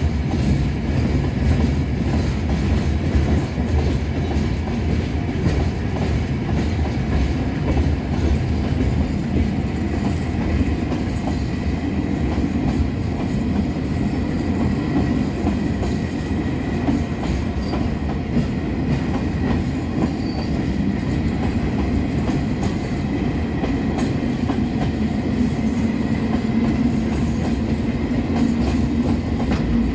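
Freight train of steel hopper wagons rolling past close by: a steady heavy rumble of wheels on rail, with a continuous clickety-clack as the wheels run over rail joints.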